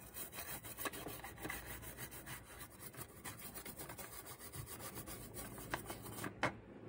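Quick back-and-forth scrubbing strokes on a graphics card's circuit board, cleaning off corrosion left by water damage. The strokes stop about six seconds in, followed by a single sharp tap.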